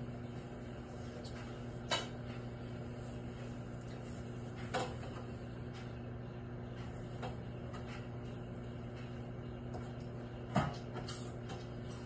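Countertop microwave oven running with a steady electrical hum while it heats a cup of diet cola. Three sharp knocks break through it, about two seconds in, near the middle and loudest near the end.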